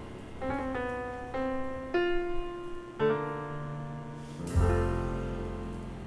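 Background music: piano playing a slow melody, single notes and chords struck every half second to a second, each fading away, with a louder low chord about four and a half seconds in.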